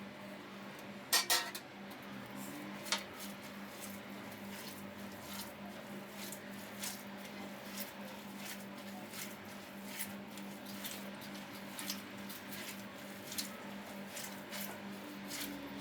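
Hands kneading raw minced meat with chopped onion and vegetables in a bowl for lahmacun filling, making wet squelching in a steady rhythm. A brief clatter of the bowl or dishes comes about a second in.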